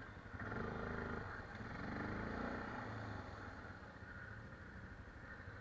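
ATV engine revving under load while the quad climbs through tall grass, with two surges in engine speed, about half a second in and again around two seconds in, then easing back.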